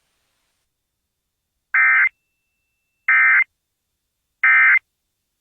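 Emergency Alert System End-of-Message (EOM) signal: three short bursts of buzzy SAME digital data tones, each under half a second, sent about 1.3 seconds apart. They mark the end of the alert test.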